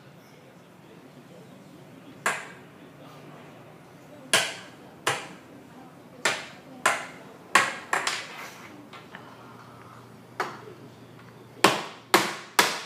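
A plastic stacking toy banged down on a tabletop by a toddler: about eleven sharp knocks at uneven intervals, coming quicker near the end.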